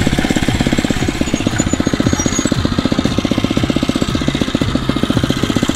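Phatmoto Rover 79cc four-stroke bicycle engine idling with a rapid, even putter, hot after a ride.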